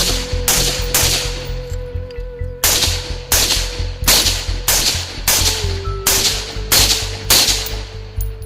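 Semi-automatic rifle fired in a steady string of single shots, sharp cracks about every half-second to second with a short pause early on, over background music.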